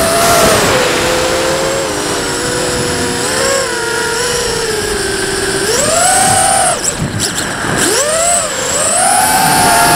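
FPV racing quadcopter's brushless motors whining, heard through its onboard camera with wind rush. The pitch sags and rises with the throttle. About seven seconds in it dives steeply and stutters as the throttle is chopped, then climbs back to a high, steady whine.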